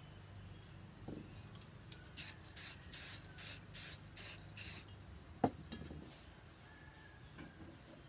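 Aerosol spray-paint can giving seven short hissing bursts in quick succession, about three a second. A single sharp knock follows a little later.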